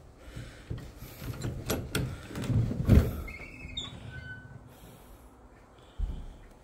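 Old wooden lattice double doors being unlatched and pushed open: rattles and knocks building to a thud about three seconds in, followed by short high squeaks as the doors swing.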